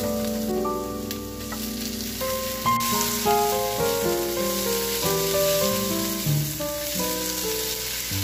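Chopped onion and tomato sizzling in olive oil in a nonstick frying pan as they are stirred, the sizzle growing louder about three seconds in. Background music with a melody of changing notes plays throughout.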